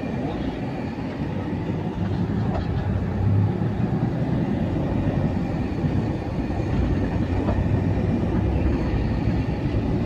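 Steady low rumble of engine and road noise inside the cabin of a moving car.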